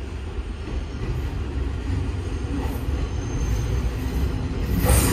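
A Semboku Rapid Railway electric train (7020 and 7000 series) running into the platform: its rumble grows steadily louder as it nears, with a sudden louder rush of noise near the end.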